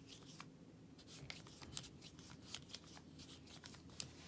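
Wera Kraftform Kompakt VDE torque screwdriver's torque adjustment being turned by hand, giving a run of faint, irregular clicks as the setting is dialled in.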